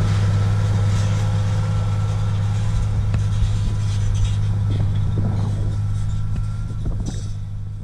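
John Deere 8100 tractor's six-cylinder diesel running steadily under load while pulling a disc harrow, with a few faint rattles. It grows slowly quieter as the tractor moves away.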